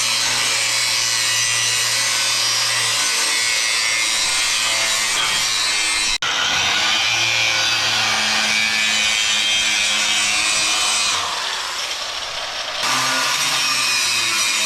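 Power grinder grinding old welds out of a steel trailer frame: a loud, steady grinding with a momentary break about six seconds in. It eases a little for a couple of seconds near the end.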